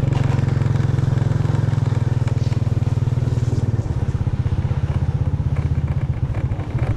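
Motorbike engine running under way, close to the microphone; about four seconds in the throttle eases off and the engine's beat slows and becomes more distinct.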